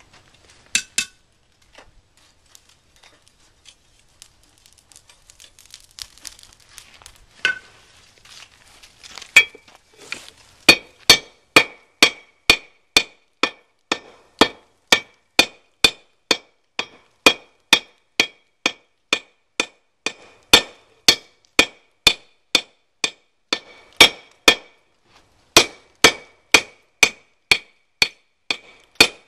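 Hand hammer striking a glowing-hot billet of 5160 spring steel and 1095 high-carbon steel on an anvil, forge-welding the layers together. A few light clinks come first, then steady blows at about two a second, each with a short bright ring from the anvil, pausing briefly near the end before carrying on.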